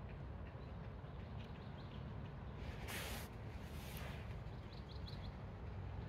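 Forest ambience with a steady low rumble, a brief hissing rustle about three seconds in, and a few faint high bird chirps about five seconds in.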